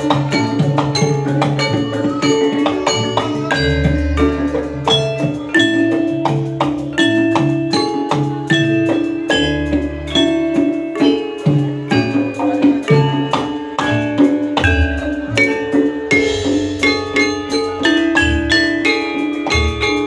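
Javanese gamelan ensemble playing jathilan music: mallet-struck keyed instruments ring out in quick interlocking notes over drum strokes, with deep booming strokes returning every few seconds.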